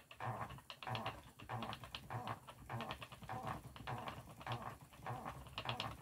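Wooden treadle spinning wheel turning steadily while yarn is plied, giving a rhythmic knock and clatter about twice a second from the treadle and wheel.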